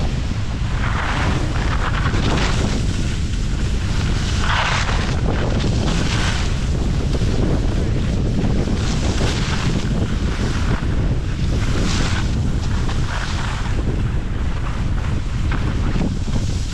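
Wind buffeting the microphone while skiing downhill, a constant low rumble. Over it, skis hiss across packed snow in a surge about every one to one and a half seconds, one with each turn.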